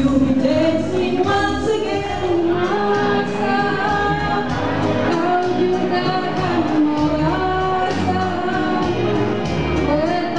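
A woman singing a melody into a microphone over backing music with a steady beat.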